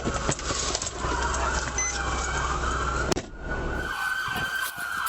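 Police car siren wailing, its pitch sweeping up and down, over a low rumble; a little over three seconds in the rumble drops away and the siren carries on.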